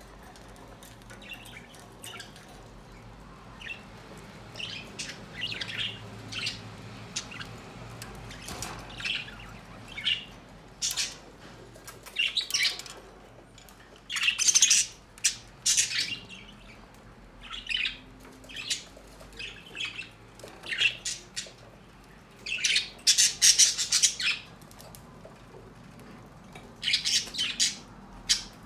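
A bird calling: irregular short, sharp chirps and squawks, often several in quick succession, loudest in clusters around the middle and again a little later.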